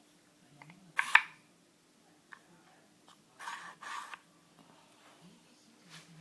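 Cat pushing the sliding plates of a puzzle feeder toy: a sharp double clack about a second in, then two short scraping slides a little past the middle.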